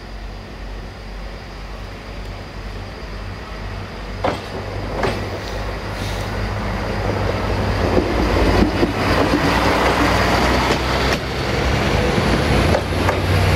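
Two coupled Siemens Desiro diesel multiple units approaching and passing close by: a low diesel drone that grows steadily louder, single wheel clacks over rail joints about four and five seconds in, then dense clattering of wheels over the joints as the cars go by.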